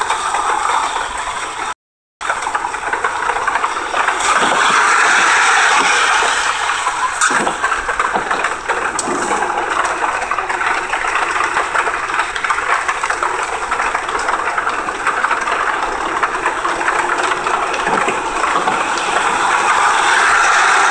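Road and wind noise inside a moving 2003 Honda Accord's cabin, a steady rushing hiss. The sound cuts out for a moment about two seconds in.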